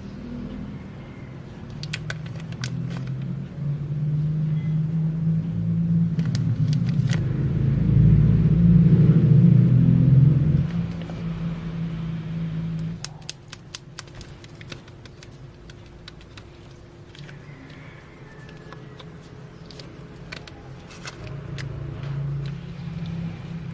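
A low rumble that builds over several seconds, peaks, then drops away about halfway through, with scattered sharp clicks and crackles of plastic figure packaging being handled.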